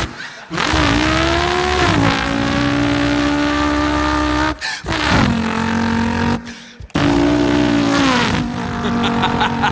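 A man imitating a car engine with his voice: a buzzing held note that rises, drops and then holds steady, like revs settling, done three times with short breaks between.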